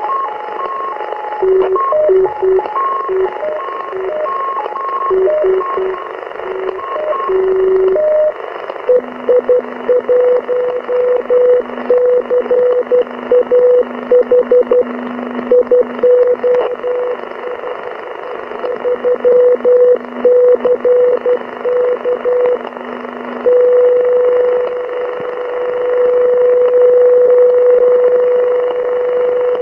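EI1CAH 8-metre (40 MHz) radio propagation beacon received over the air and heard through a receiver's single-sideband audio in steady hiss. For about eight seconds it sends a sequence of stepping tones on four pitches, then Morse-style keying that shifts between a high and a low tone, and from about 23 seconds a steady unbroken carrier tone.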